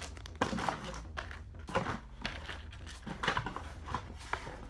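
Plastic lure packaging crinkling and a cardboard box being handled: a string of irregular rustles and light knocks.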